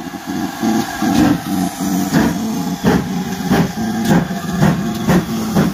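GWR Saint class two-cylinder 4-6-0 steam locomotive No. 2999 'Lady of Legend' pulling away under steam. Over a steady low rumble, its exhaust chuffs start about two seconds in and come quicker as it gathers speed.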